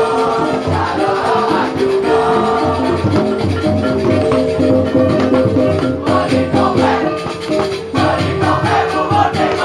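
Balinese gamelan music: dense, fast metallic strikes over steady sustained tones.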